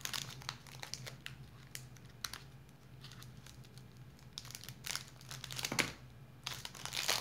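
Clear plastic lollipop wrapper being crinkled and pulled off by hand, in irregular crackles that are loudest about five seconds in and near the end.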